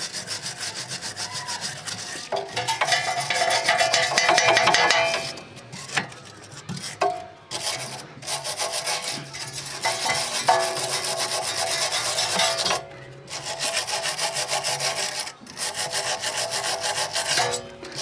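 Small brass wire brush scrubbed hard back and forth over a rusty steel suspension bolt, scraping the rust off: rapid rasping strokes broken by a few short pauses.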